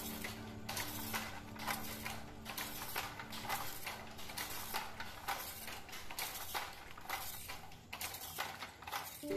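Wooden handloom clacking as it weaves, a steady rhythm of sharp knocks about twice a second.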